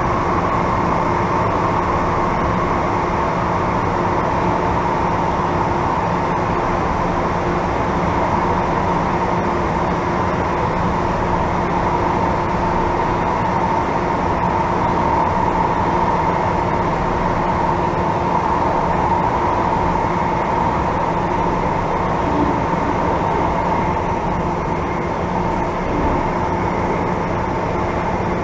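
MTR M-train metro car running at steady speed through the Eastern Harbour Crossing tunnel, heard from inside the car: a continuous rumble of wheels on rail with a sustained howling whine over it. The howl is the noise from the A237 end that the recordist likens to the old A185 car.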